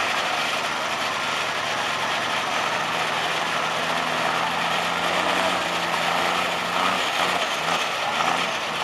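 Engine of a military-style mud truck running steadily as it crawls through a muddy water pit, a dense mechanical clatter over one steady low hum.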